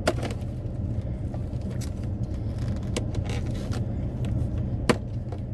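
Steady low hum of the car's idling engine and air conditioning, with a few sharp clicks and crackles of handled takeout packaging, the loudest near the end.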